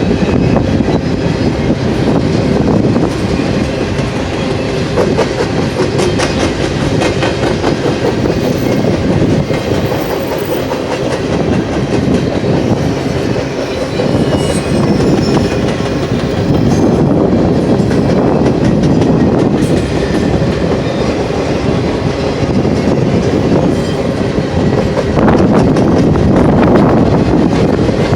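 BNSF double-stack container freight train rolling past, its cars' wheels clicking over the rails in a steady rumble, with strong wind buffeting the microphone.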